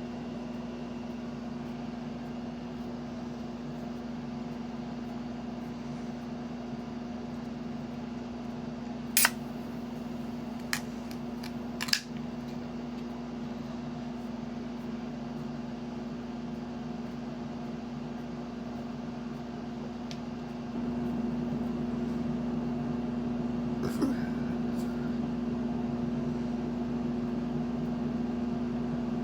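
Steady machine hum, like a small fan or motor, with a few sharp clicks; the hum gets louder about two-thirds of the way through.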